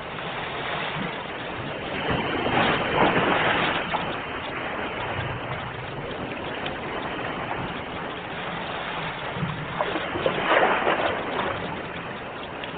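Sea waves washing ashore: a steady rush of surf with two louder breaking waves, one about two seconds in and another about ten seconds in.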